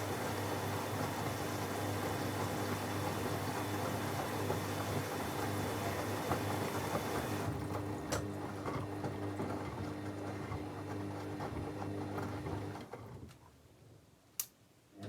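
Techwood WB 91042I front-loading washing machine running in its wash phase: a steady hum with water rushing and sloshing inside. The rushing thins about halfway through, the machine goes quiet about two seconds before the end, and a single sharp click follows.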